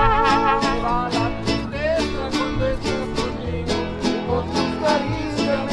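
Music with plucked string instruments over a steady beat; a held, wavering melody note fades out about a second in.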